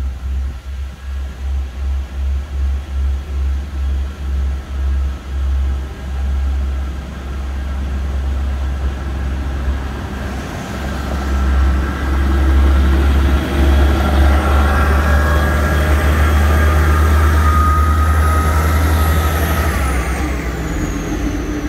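Great Western Railway Class 158 diesel multiple unit pulling away and passing over the level crossing. At first its diesel engine beat pulses about two to three times a second. Then comes a steady rumble with whining tones that rise as it accelerates, and the pitch drops as it goes by near the end.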